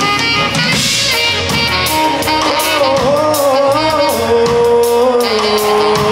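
Live band playing with a singer over electric guitar and drum kit; the voice holds a wavering note in the middle, and steady held notes come in near the end.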